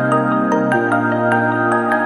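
Background music: a soft new-age piece of held chords with a quick run of light chiming notes, about five a second, and a change of chord near the middle.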